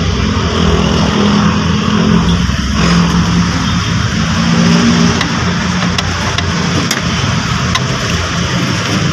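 A vehicle engine running steadily, its hum shifting in pitch a few times. A few light clicks come in the second half.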